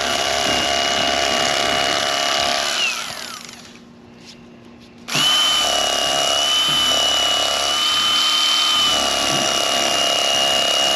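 Bubba Blade electric fillet knife with a stiff reciprocating blade running with a steady high whine while cutting through the sheepshead's armor-like scales behind the head. About three seconds in it is switched off and its pitch falls away as it spins down; about five seconds in it starts again suddenly and runs steadily.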